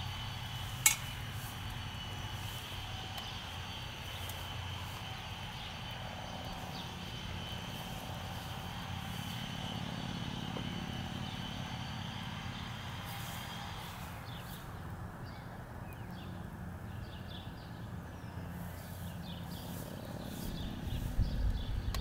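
Steady outdoor background drone, low and even, with faint steady high tones. One sharp click about a second in, and a few low thumps near the end.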